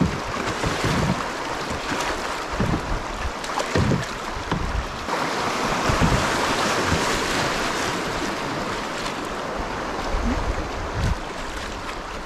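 Shallow, fast river water rushing and splashing around a kayak's bow as it runs a riffle, with a few low buffets of wind on the microphone.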